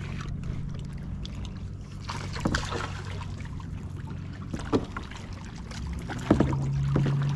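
A motorboat engine drones steadily, growing louder near the end, with a few sharp knocks around the kayak.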